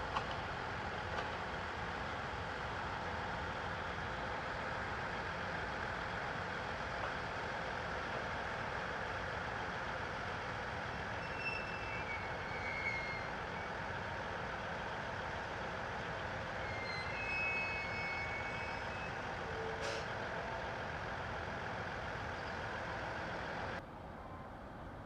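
Steady mechanical running noise of a train standing at a station, with a few brief high-pitched chirps, cutting off abruptly near the end.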